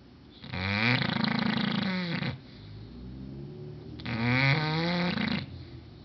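English bulldog snoring loudly in its sleep. There are two long snores, one beginning about half a second in and the next about four seconds in, with a quieter breath between them.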